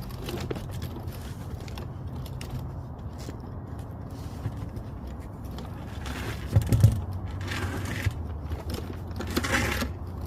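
Metal tools clinking and scraping as they are handled, with a louder clatter about six and a half seconds in, over a steady low rumble.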